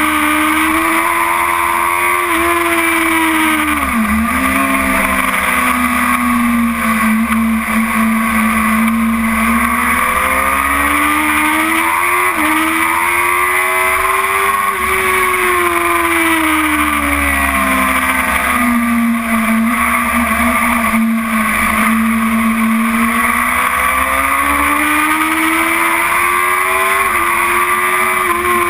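BMW S1000RR's inline-four engine at racing speed, heard on board over rushing wind. Its pitch climbs and falls slowly as the rider accelerates and backs off, with a sharp dip about four seconds in and a step up near the end.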